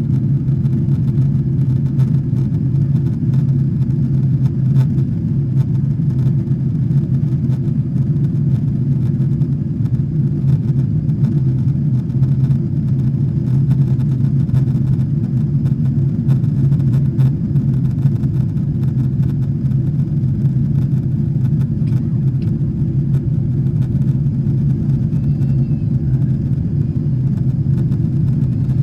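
Steady low rumble of a Boeing 777-300's engines and rushing air heard inside the passenger cabin as the airliner climbs after takeoff.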